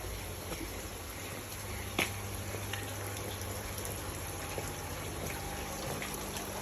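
Water running and trickling steadily in fish tanks, with a low steady hum beneath it and a single click about two seconds in.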